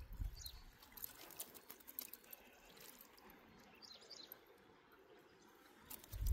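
Faint open-air ambience: scattered light water drips and splashes with a few short, high bird chirps. A low rumble starts right at the end.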